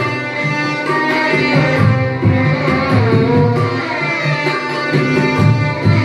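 Carnatic violin music: two violins play a melody full of sliding ornaments, with tabla strokes keeping time beneath.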